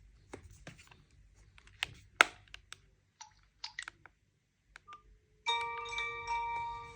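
A scattering of sharp clicks and taps and a short beep, then about five and a half seconds in a mobile phone's incoming-call ringtone starts: an electronic tune of several steady tones sounding together.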